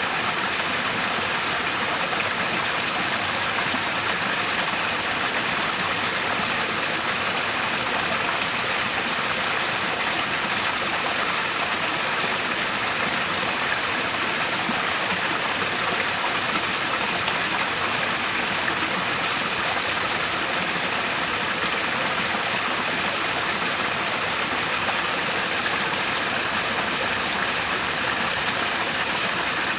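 Steady, unbroken rush of a natural waterfall: an even hiss of falling water with little deep rumble.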